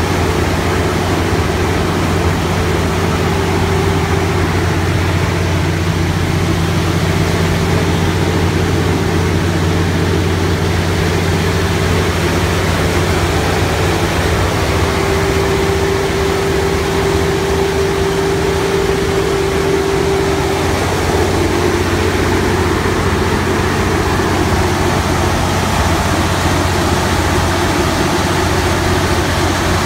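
Cummins NT855G6 inline-six diesel engine of a 275 kW generator set running steadily at constant speed, heard from inside its sound enclosure. A higher whine comes up more strongly for several seconds about halfway through.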